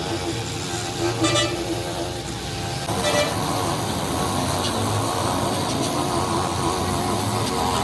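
Steady motor-vehicle engine and traffic noise, with two short horn toots about one and three seconds in.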